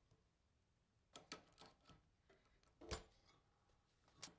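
Faint clicks and snips of hand wire strippers working the insulation off 14-gauge electrical wire, about half a dozen short clicks with the loudest about three seconds in.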